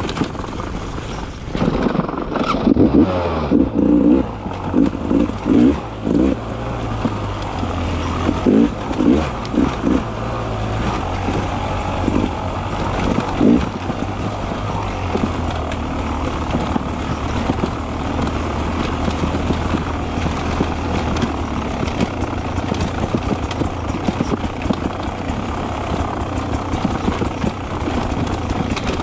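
Beta 300 RR two-stroke enduro motorcycle being ridden. The engine revs up and drops in repeated surges for the first dozen or so seconds, then runs more evenly.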